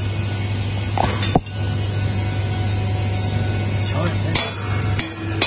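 Steady low hum with a couple of sharp metallic knocks about a second in and another brief clatter near the end.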